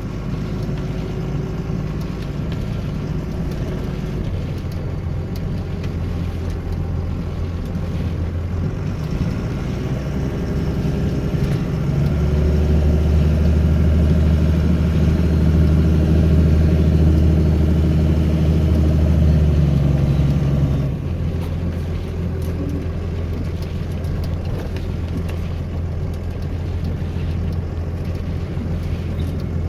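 A steady engine drone that gets louder and higher from about 12 seconds in, then drops back suddenly about 21 seconds in.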